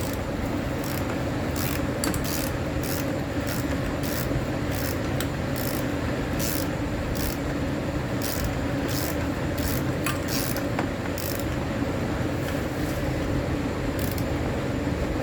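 Oxygen sensor being screwed into the threaded bung of a new aftermarket catalytic converter: short metal-on-metal scraping strokes about twice a second as the threads are turned, with a little resistance, over a steady hum.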